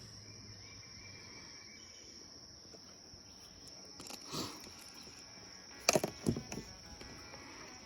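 Insects droning steadily at a high pitch in creekside ambience, with a few sharp knocks in quick succession about six seconds in.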